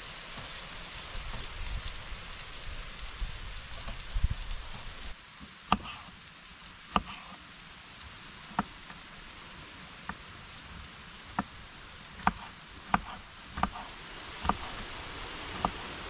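Food sizzling in a frying pan on a portable camping gas stove, then, from about six seconds in, a knife slicing a tomato on a wooden cutting board: about ten sharp knocks, roughly one a second, quickening near the end, over the continuing sizzle.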